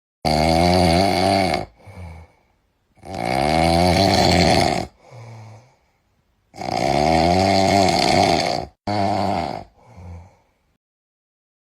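Pig meme sound effect: three long, loud, harsh calls with a wavering pitch, each followed by a shorter, quieter call.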